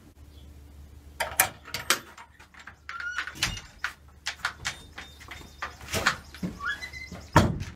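A wooden door being opened by its metal knob: the knob and latch rattle and click, the hinges give short rising squeaks twice, and steps knock on wooden boards, with a loud knock near the end.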